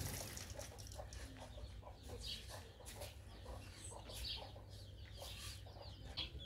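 Chickens clucking: a scattered run of short calls, faint over a low steady background hum.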